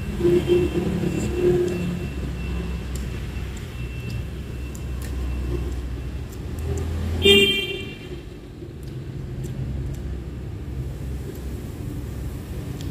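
Steady rumble of street traffic, with one short vehicle horn beep about seven seconds in. Faint clicks of a fork and chopsticks against a plate.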